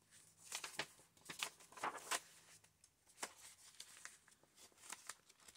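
Paper pages and flaps of a handmade junk journal rustling and brushing as they are turned and handled: a string of short, faint crinkles, busiest in the first two seconds.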